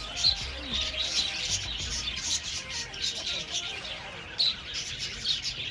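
Many small birds chirping and twittering at once in a continuous, busy chorus of short, high chirps.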